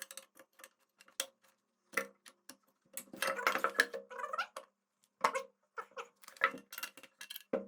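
Small metal parts of a GY6 scooter's kick-start assembly clicking and scraping against each other as they are handled and fitted by hand: a run of irregular clicks, with a denser rattle and scrape about three to four seconds in.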